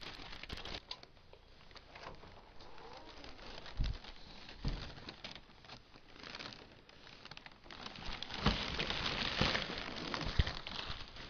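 Muffled rustling and scraping of a camera covered by fabric as it is carried, with a couple of dull knocks about four seconds in and louder rubbing from about eight seconds in.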